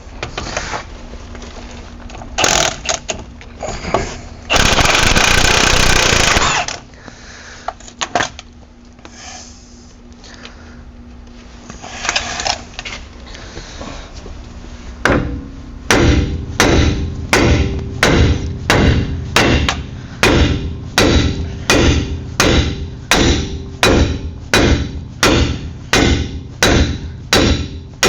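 Hand hammer blows on steel parts of a pickup's front suspension. After a few knocks and a loud two-second burst of noise about five seconds in, a steady run of hammer strikes starts about halfway through, a little under two a second, each ringing briefly.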